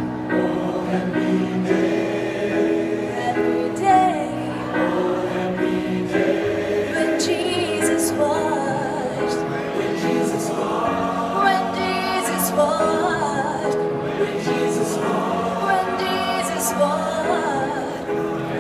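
A group of voices singing a song together in chorus, with long held notes.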